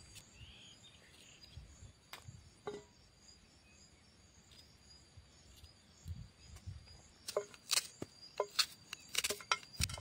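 Small kitchen knife slicing through a green capsicum and onion held in the hand, a few crisp cuts at first and then a quick run of sharper cutting clicks in the last few seconds. Insects trill steadily in the background.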